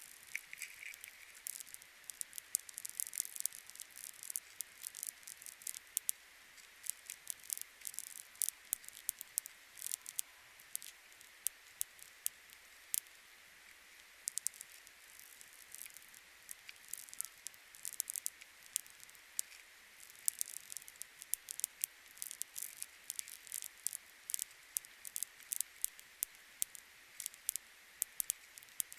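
Many light, irregular clicks and crackles, coming in quick clusters.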